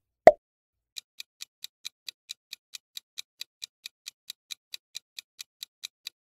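A short pop just after the start, then a clock-tick countdown timer sound effect ticking evenly about four times a second.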